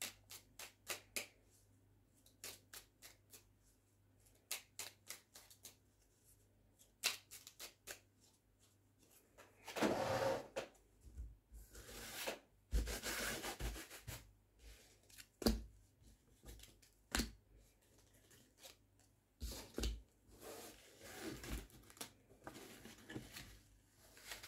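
A deck of oracle cards being shuffled by hand, a run of quick clicking flicks, then cards slid and laid down on the table with soft rubbing and scattered taps.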